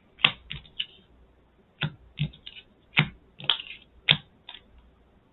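Trading cards being handled and turned on a table: about ten sharp, irregular clicks and taps, as lands are tapped for mana and a card is put down.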